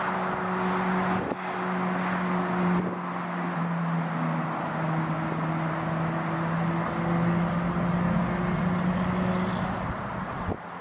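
Airbus A380's four jet engines running at low power as the airliner turns on the runway: a steady rumbling hiss with a low hum that drops slightly in pitch about four seconds in and fades near the end.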